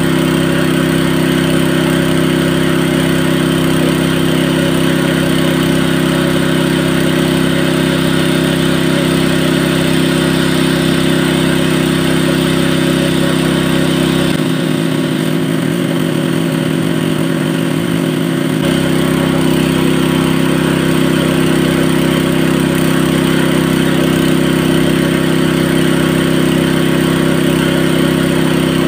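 An engine running steadily at an unchanging pitch. Its low rumble drops away for a few seconds about halfway through.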